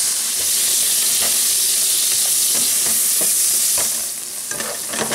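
Diced onion sizzling in melted butter in a nonstick frying pan while being sautéed, with a spatula stirring and scraping the pan in short clicks and scrapes. The sizzle eases briefly near the end.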